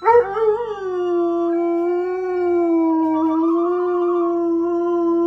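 A dog howling: one long howl that wavers in pitch at first, then holds a steady note.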